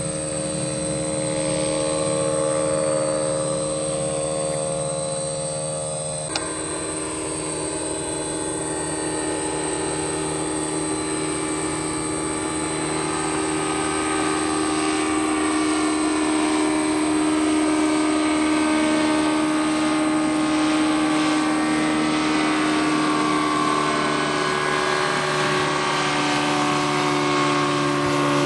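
Microlight trike's engine and propeller running steadily. About six seconds in, the engine speed steps up sharply, then holds, drifting slowly and easing slightly lower near the end.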